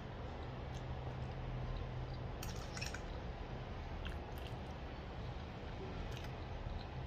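Eating at a plate: a metal fork clicking and scraping against the plate as noodles and peas are picked up, with soft chewing, over a steady low hum. A quick run of clicks comes about two and a half seconds in, with a few single ones later.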